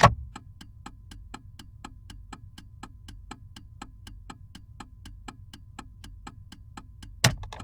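Saturn car with a low rumble, which the material suggests is the engine idling, under an even ticking about four times a second. A loud click opens it, and another loud click comes near the end, just before everything stops.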